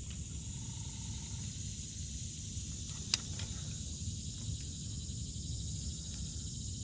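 Steady high insect chorus with a low rumble underneath, and one sharp click about three seconds in.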